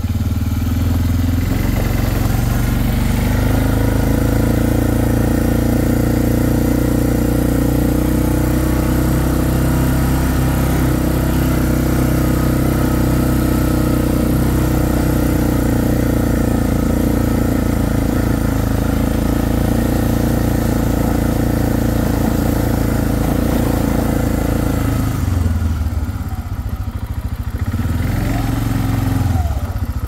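Four-wheeler (ATV) engine running steadily under way. The engine eases off for a few seconds near the end, then picks up again.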